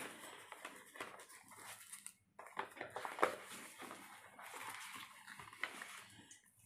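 Paper and cardboard phone-box packaging rustling and shuffling as its inserts and sleeves are handled, in uneven bursts with a brief pause about two seconds in.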